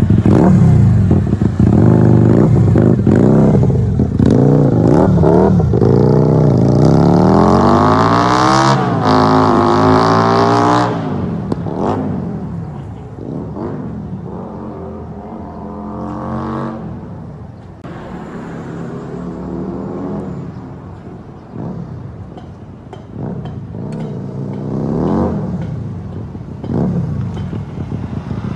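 Benda Napoleon Bob 250 V-twin motorcycle engine running through a Big Shots aftermarket exhaust, revved repeatedly. Revs climb steeply about eight to ten seconds in, then drop off, and the engine runs quieter after that with several short throttle blips.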